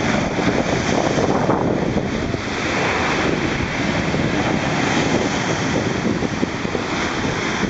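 Sea waves and surf washing, with wind buffeting the microphone in a steady low rumble.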